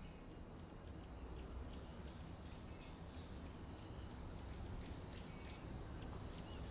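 Faint outdoor ambience: a low rumble with scattered short bird chirps, slowly growing louder.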